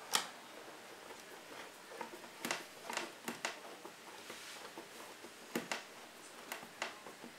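Scattered light clicks and faint scraping as a small screw is driven by hand with a screwdriver into the plastic casing of an LED mini projector, and hands move on the casing. The clicks come at irregular moments, the sharpest right at the start.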